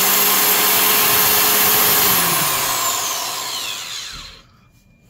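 Ryobi TC401 tile saw's 12-amp universal motor running free at full speed with a high whine, no tile being cut. About two seconds in it is switched off and spins down, its pitch falling until it stops.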